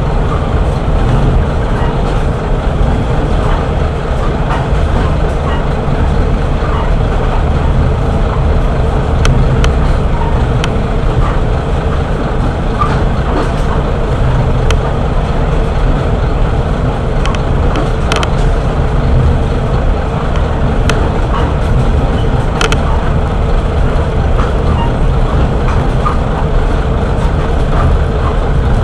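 Kashima Rinkai Railway 6000-series diesel railcar running, heard from inside the passenger cabin: a steady engine drone and wheel-on-rail rumble, with a held hum and a few scattered sharp ticks.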